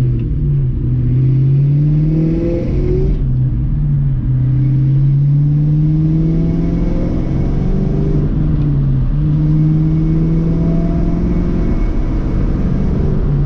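2001 Ford Mustang GT's 4.6-litre two-valve V8 with Flowmaster 40 Series mufflers, pulling up through the gears with a deep exhaust rumble. The pitch climbs steadily, then drops at upshifts about three and eight seconds in.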